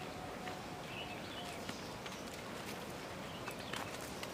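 Steady rural outdoor background noise with scattered faint clicks and a few short, high chirps.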